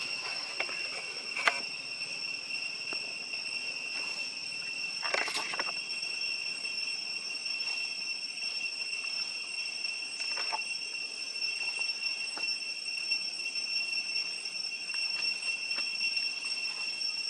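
Steady, high-pitched drone of an insect chorus that holds one pitch throughout. A few faint clicks sit over it, with a short burst of noise about five seconds in.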